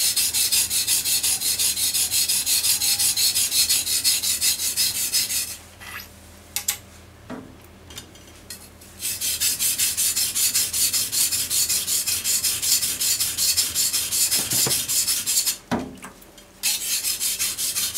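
Steel blade of a bunka kitchen knife stroked rapidly back and forth on a water-soaked whetstone, a fast, regular rasping. The strokes stop twice, for about three seconds near the middle and for about a second near the end, with a few light clicks in the first gap.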